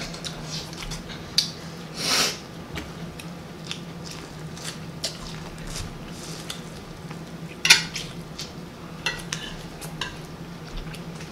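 Close-up eating sounds: chewing and smacking, with a metal fork clinking and scraping on a plate in short clicks. Two louder bursts stand out, about two seconds in and near eight seconds.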